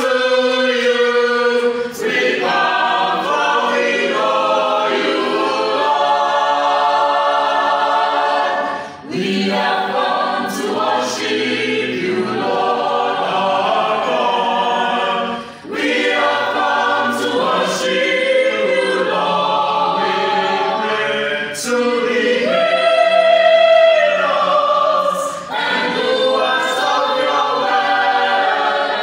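Mixed choir of men and women singing a gospel song unaccompanied, in long held phrases broken by brief pauses about every five or six seconds.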